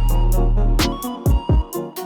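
Background music with a deep bass line and a steady electronic drum beat.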